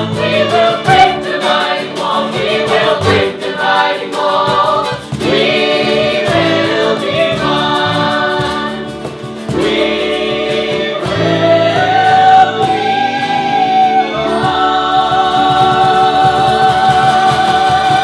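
Family band performing a gospel worship song: mixed voices singing together over acoustic guitar, violin, electric bass and cajon. Over the last few seconds the singers and instruments hold a long chord.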